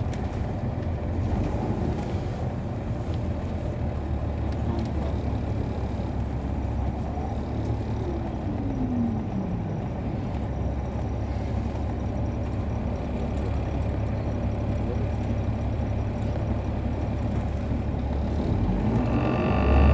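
Cabin sound aboard a 2007 MCI D4500CL coach: its Caterpillar C13 diesel engine and road noise as a steady low rumble, with a falling whine about eight seconds in. Near the end the engine revs up and grows louder as the bus pulls away.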